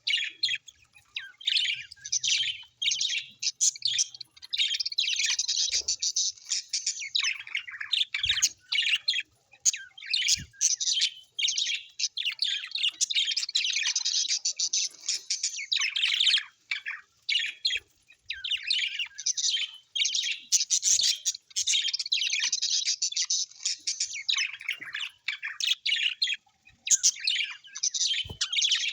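Small birds chirping and chattering in rapid, nearly unbroken runs of high calls, with a few short pauses.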